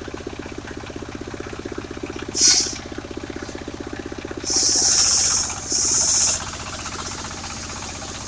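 Engine of a portable circular sawmill running steadily with an even, rapid pulse. Three brief loud hissing bursts sound over it, one about two and a half seconds in and two close together past the middle.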